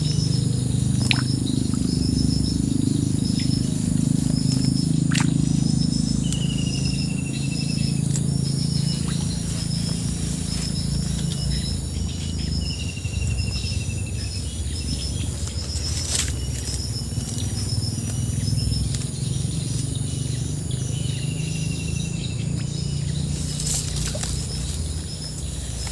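Outdoor ambience: a steady high insect drone and a bird's short chirps repeating about twice a second. A longer falling call comes three times, all over a steady low rumble, with a few sharp clicks.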